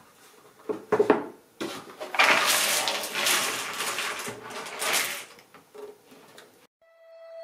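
A 1000-piece cardboard jigsaw puzzle poured out of its box onto a table: a dense rattling patter of pieces sliding and spilling for about four seconds, after a couple of knocks about a second in. Music starts near the end.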